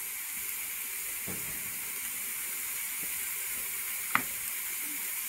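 Chopped onion and a spoonful of ghee sizzling in a metal pot over the heat: a steady frying hiss, with one sharp click about four seconds in.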